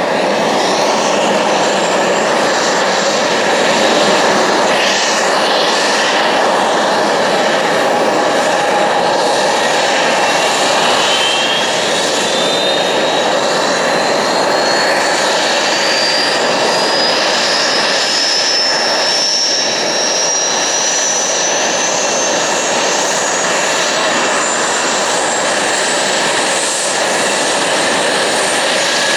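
Eurofighter Typhoon's Eurojet EJ200 jet engines running on the ground with a steady roar. A thin high whine rises slowly through most of the second half, an engine spooling up during start-up.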